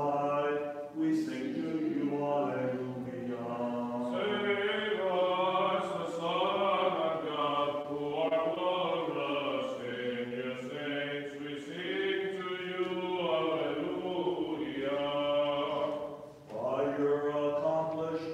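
Byzantine chant: unaccompanied sung hymn, the melody winding slowly over long held notes, with a short breath pause near the end.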